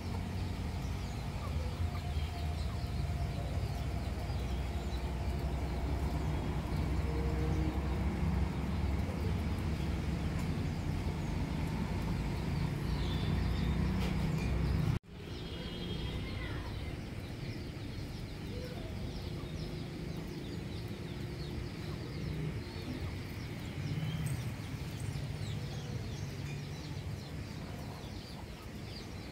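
Aseel chickens clucking softly over steady outdoor background noise. A low rumble fills the first half and cuts off abruptly about halfway through, leaving quieter ambience with the clucks.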